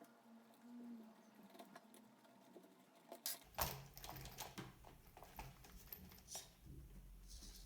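Faint scattered clicks and taps of small parts being handled as a wheel is fitted back onto a small RC monster truck, with a few sharper clicks about halfway through.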